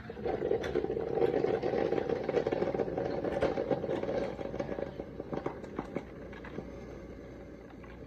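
Mr. Coffee single-serve iced coffee maker sputtering and gurgling with a crackly hiss as it pushes the last water through at the end of its brew cycle. It is loud for about the first five seconds, then fades away.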